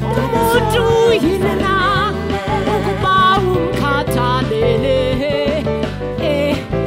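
Live gospel band: a woman sings the lead in wavering, ornamented runs over backing vocals, electric bass, drums and keys.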